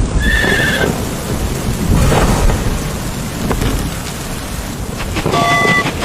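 Thunder rumbling over a steady rain-like hiss. A short high wavering tone sounds near the start, and a brief chime-like tone a little after five seconds.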